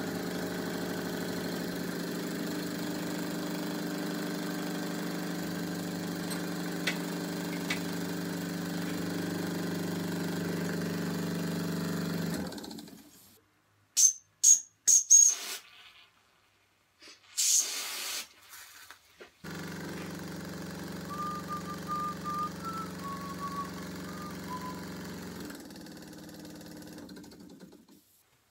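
Small Mamod live-steam engine, a TE1A converted to a portable engine, running steadily with an even note, then stopping abruptly about twelve seconds in. A few light metallic clicks follow as it is handled, then it runs again more quietly from about two-thirds of the way through and dies away near the end.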